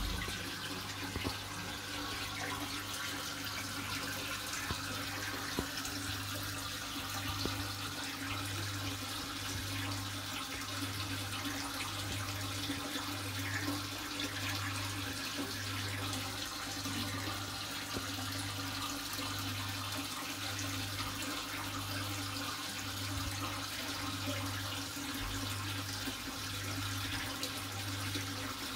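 Aquarium water running and bubbling at the surface, a steady splashing hiss, over a low equipment hum that pulses about once a second.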